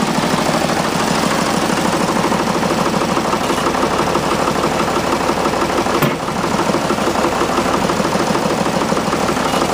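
Loader's engine running steadily under hydraulic load as the bucket is raised to lift a heavy milling machine on a chain. A single sharp clank comes about six seconds in.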